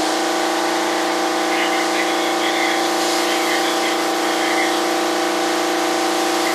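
Air compressor running steadily, a hum of several steady tones, under the hiss of an air spray gun spraying primer.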